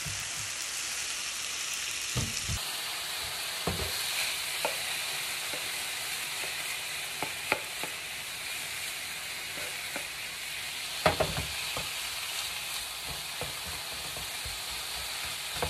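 Cubed seasoned chicken sizzling steadily in a nonstick frying pan as it is stirred. Scattered short knocks and clatters come through, with the loudest cluster about two-thirds of the way through.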